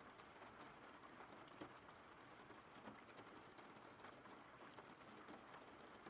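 Faint steady rain: an even hiss with scattered drops tapping through it.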